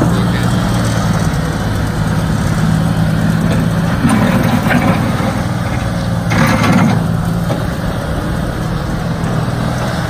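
New Holland LS185B skid steer loader's diesel engine running as the machine drives and turns on gravel. The engine note is steady, rising and getting louder about four seconds in and again around six and a half seconds as the machine works.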